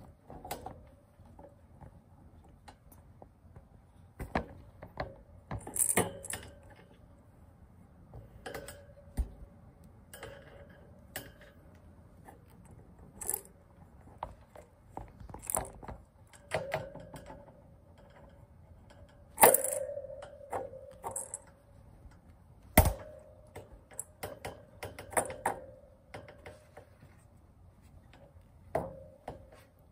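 A kitten batting at and pouncing on a feather wand toy: irregular light clicks and taps, some followed by a short ringing tone, with the loudest hits about two-thirds of the way in.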